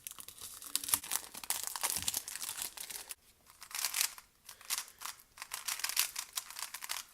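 Crinkling plastic packaging being handled and torn open, a dense run of crackles that breaks up into shorter clusters about halfway through.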